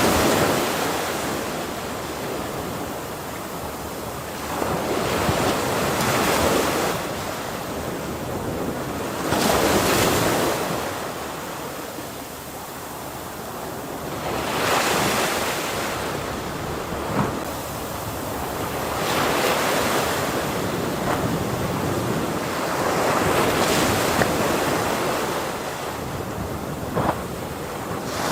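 Ocean waves breaking: a wash of surf that swells and ebbs again about every four to five seconds.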